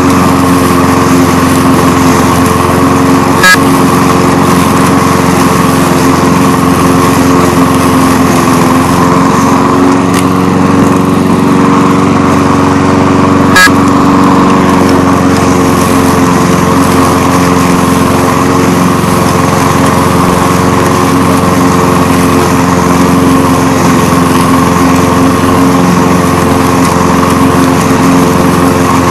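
Walk-behind push lawn mower's small petrol engine running steadily while cutting grass. Two sharp clicks stand out, about ten seconds apart.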